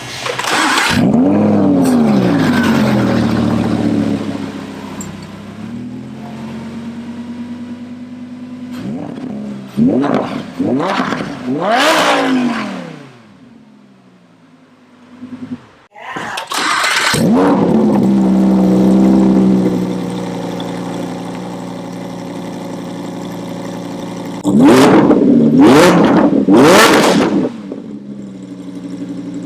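Lamborghini Huracán's V10 started with a flare of revs that settles to idle, then blipped twice. It falls quiet, is started again with another flare that settles to idle, and near the end is blipped about three times. One run is heard through the stock exhaust and the other through a Capristo exhaust.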